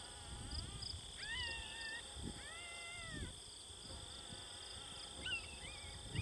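Coyote pup-distress sound from an electronic predator call: a few separate high, whining yelps that arch up and fall off in pitch.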